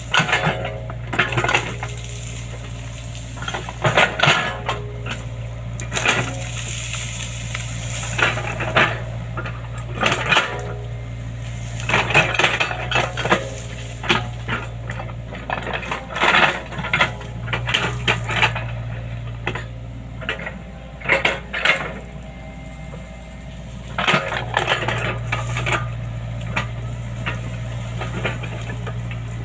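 Excavator engine running steadily, with repeated loud metallic clanks and rattles coming in clusters every second or two.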